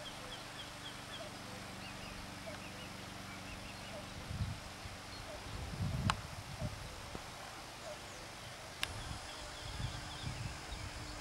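Quiet outdoor ambience: a steady hiss with short series of faint, high bird chirps near the start and again about nine seconds in. Several low rumbling bumps on the microphone come and go, the strongest about six seconds in together with a sharp click.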